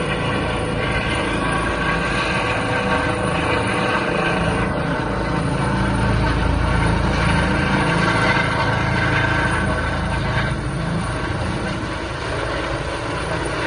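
Rescue helicopter's rotor and engine running steadily. It grows louder through the middle and eases off a little near the end.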